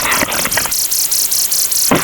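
A looping electronic sound effect: a rapid, high rattling buzz pulsing about six times a second, with a sharp hit at the start of each two-second cycle.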